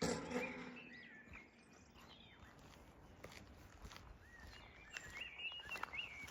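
Small birds chirping and singing, with a short sheep bleat right at the start and a few footsteps on a path.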